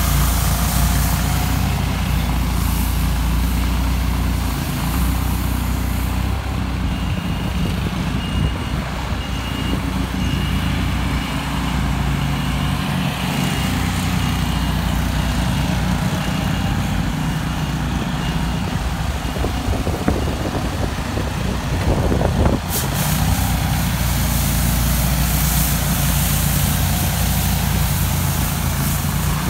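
John Deere 855D Gator's three-cylinder diesel engine running steadily under load, driving its front rotary broom as it sweeps snow: a constant low rumble. For several seconds in the middle a high beeping sounds about twice a second, and one sharp knock comes about three quarters of the way through.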